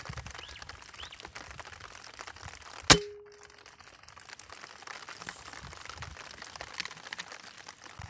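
A single rifle shot about three seconds in: one sharp crack with a short ringing tone that dies away quickly. A steady crackling hiss runs underneath.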